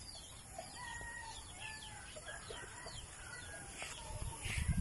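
Roosters crowing some way off, with small birds chirping and a few low thumps near the end.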